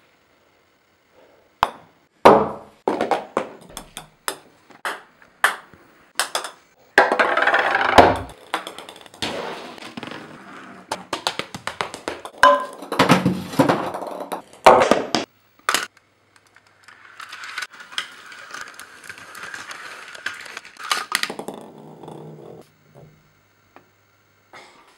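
A golf ball putted and then rolling, bouncing and knocking against hard surfaces: a run of sharp clicks and knocks, with longer stretches of rolling noise.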